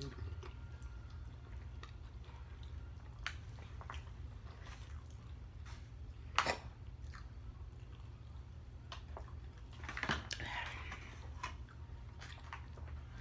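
A person chewing pasta close to the microphone, with scattered wet mouth clicks and smacks, the loudest about six and a half seconds in, over a steady low hum.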